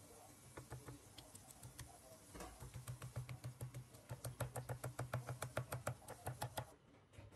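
Stone pestle pounding chillies and garlic in a stone mortar: a few light taps at first, then a quick, even run of strokes from about two and a half seconds in, stopping shortly before the end.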